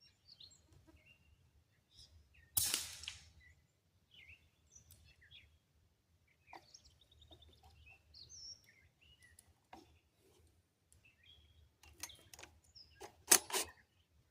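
A single rifle shot from an AR-15 in 350 Legend about two and a half seconds in, trailing off over about a second, with small birds chirping throughout. Near the end there are several sharp clicks and knocks of the rifle being handled.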